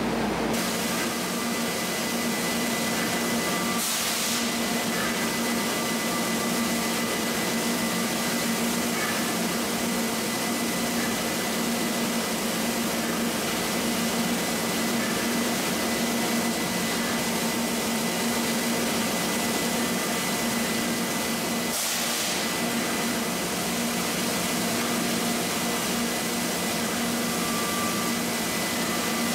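Steady, even hiss of factory machinery running, with a low hum and a faint high whine held on one pitch.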